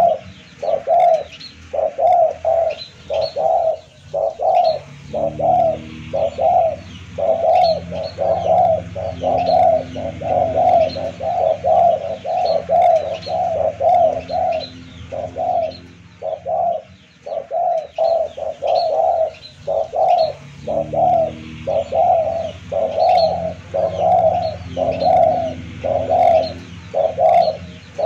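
Spotted dove cooing over and over, short low coos about two a second with brief pauses, a lure-call recording meant to draw in wild spotted doves. High thin chirps run above the coos.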